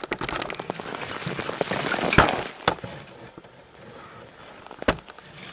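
Crunching and crackling of footsteps in fresh snow and snow-covered brush, with close handling noise. It is busiest and loudest for the first two or three seconds, then quieter, with one sharp click near the end.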